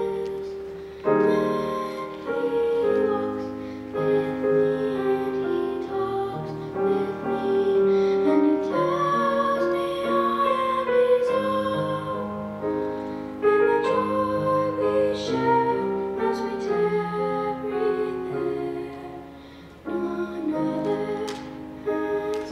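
A young girl singing a solo hymn, accompanied by piano.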